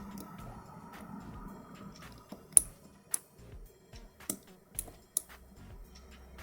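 Lock pick and tension wrench working the pins of a six-pin lock, giving small sharp metallic clicks: about five irregular clicks in the second half, the loudest about two and a half seconds in.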